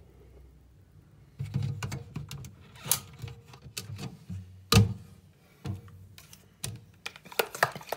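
An irregular run of sharp clicks and light knocks. The loudest knock comes a little under five seconds in, and the clicks come thicker near the end.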